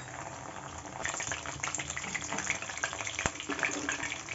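Marinated chicken pieces frying in hot oil in a kadhai, crackling and sizzling, as a wire skimmer lifts them out; the sizzle gets louder about a second in. A sharp click, like the skimmer knocking the pan, about three seconds in.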